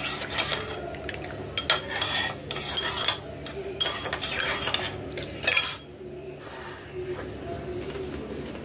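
Steel spoon stirring milk in a ceramic mug, clinking and scraping against the sides, stopping about six seconds in.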